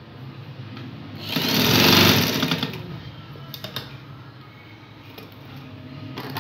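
Electric-motor-driven sewing machine stitching in one short run of about a second and a half, starting about a second in and then stopping, followed by a few light clicks.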